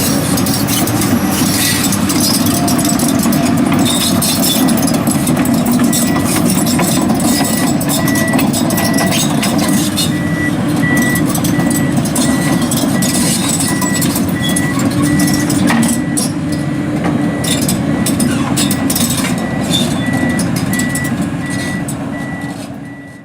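Komatsu PC240LC-10 excavator running steadily, with scattered clanks and clicks; from about six seconds in a high beeping alarm sounds in repeated short beeps. The sound fades out near the end.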